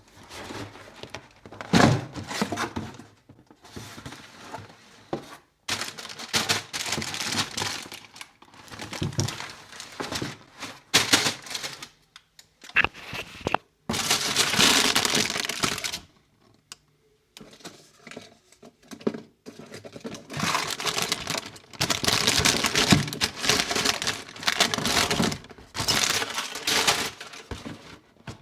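Packaging being opened and handled by hand: paper and plastic wrapping crinkling and tearing, with knocks and thuds from the cardboard box. The sounds come in irregular stretches, with a steadier two-second rustle around the middle and brief pauses.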